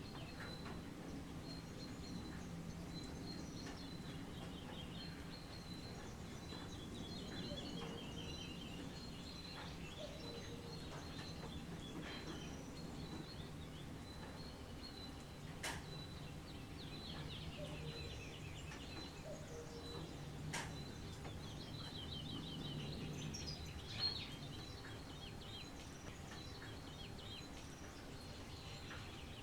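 Wild birds singing, with repeated trilled phrases over a steady low background hum of outdoor ambience. Three sharp clicks stand out, one around the middle and two later on.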